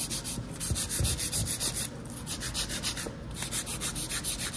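Hand nail file scraping back and forth across a long acrylic nail to shape the tip, in quick even strokes of about five a second, broken by short pauses about two and three seconds in.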